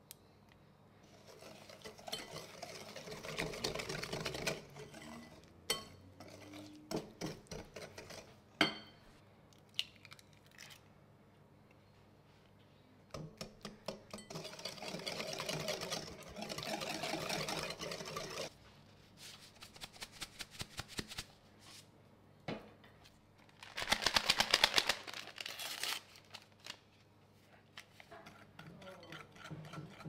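A metal fork beating and scraping melted butter and sugar in a glass mixing bowl: three stretches of rapid clicking against the glass, the last the loudest, with single taps and clinks of the fork on the bowl in between.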